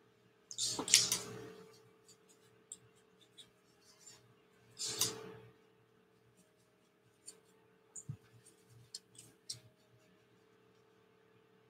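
Paintbrush strokes scrubbing across a stretched canvas: two scratchy swishes, one about a second in and one about five seconds in, then a few light taps and clicks near the end.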